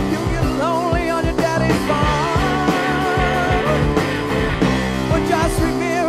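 Hard-rock band playing live: electric guitar, bass and drums under a male lead vocal held on high, wavering notes, with steady drum hits.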